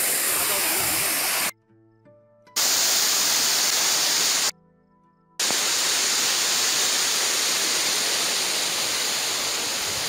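Rushing water of a forest waterfall and the stream below it, a steady full-range rush. It cuts out twice for about a second, near the start and about halfway through.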